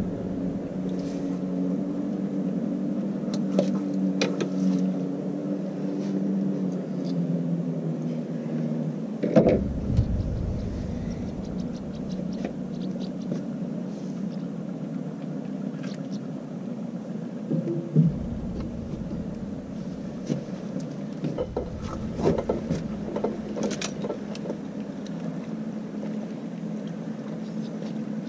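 A steady low engine hum, with a loud knock about a third of the way in, another about two thirds in, and a cluster of light clicks near the end.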